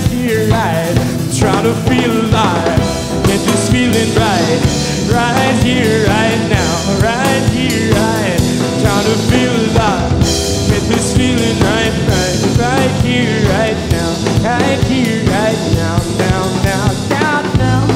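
Live rock band playing an instrumental passage on electric guitar, electric bass and drum kit, with a lead line of bending, wavering notes over the rhythm section.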